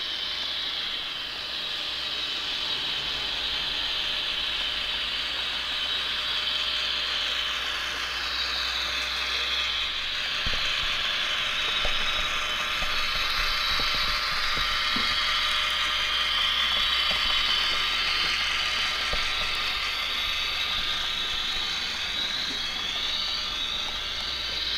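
Atlas HO-scale AEM-7 model electric locomotive with DCC sound running on the track: a steady mechanical whirring with a high whine that rises and falls, and scattered light clicks partway through.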